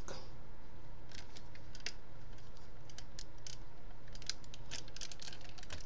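Small, faint clicks and taps of a No Brand MP-10 Optimus Prime transforming-robot figure's parts being handled and pushed into place, scattered irregularly over a steady low hum.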